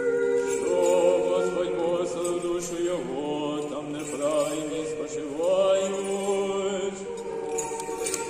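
Choir singing a slow Orthodox memorial-service chant in held chords, the harmony changing about three seconds in and again past the middle.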